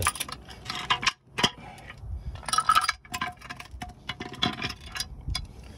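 Steel truck brake shoes and their coil return springs being handled and fitted together: irregular metal clicking, rattling and clinking, some clinks ringing on briefly, with a sharp clank about a second and a half in.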